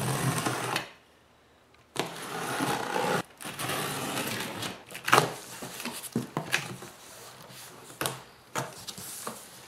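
Utility knife slicing through the packing tape along the seams of a cardboard box, in scratchy strokes with a short pause about a second in. Near the end the cardboard flaps are pulled open, with a few sharp knocks and rustles.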